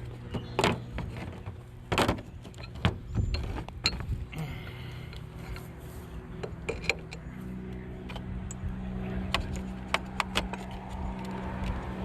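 Irregular sharp metallic clicks and knocks of hand tools on a surface cleaner's steel bar, as a broken brass bar saver is worked out of it, over a steady low hum.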